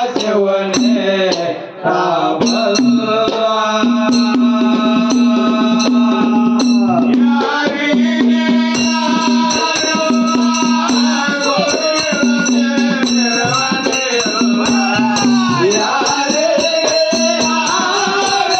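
Dollina pada devotional folk music: a male voice sings long, bending notes over a hand-played barrel drum and a large dollu drum beating a steady rhythm, with small hand cymbals ringing throughout.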